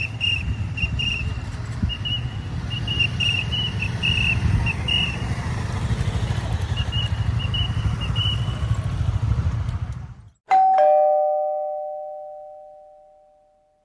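Steady low outdoor rumble with faint, broken high chirping, which cuts off abruptly about ten seconds in. A single chime with two tones then rings once and fades out evenly over about three seconds, like a doorbell.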